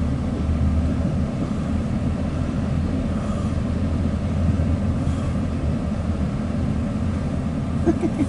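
Loaded coal hopper cars of a freight train rolling past close by, a steady low rumble of steel wheels on rail, heard from inside a car.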